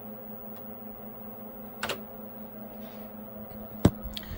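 A few key clicks on vintage computer keyboards as Enter is pressed to start the programs, over a steady hum from the running computers. A sharp knock near the end is the loudest sound.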